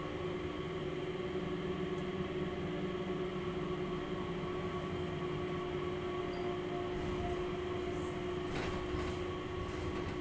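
Inside an airport Skytrain people-mover car under way: a steady hum with a constant pitched drone over a low rumble, and a couple of faint clicks near the end.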